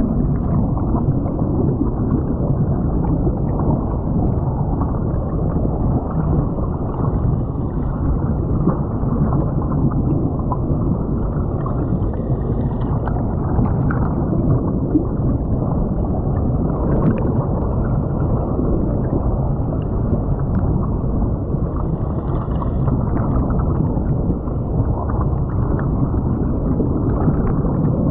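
Creek water rushing and gurgling past a camera lying under water, heard muffled and steady through the submerged microphone, with small ticks of bubbles and grit.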